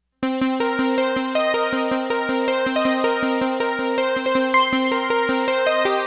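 A Roland Integra-7 Synth Polykey preset played as a fast, even run of short synth notes, about four to five a second, over a steady low note. The upper notes change while the low note holds. It starts just after the beginning and rings on past the end.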